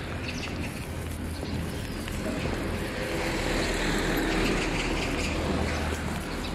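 Street traffic: a vehicle passes, its noise swelling and fading around the middle, over a steady low rumble.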